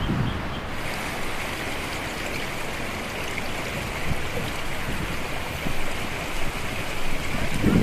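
Shallow mountain stream running over and between boulders: a steady rush of flowing water.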